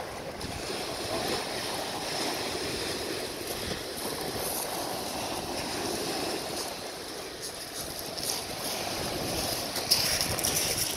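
Surf breaking and washing over a pebble beach, a steady rush of water, with a few sharp clatters and a louder burst near the end.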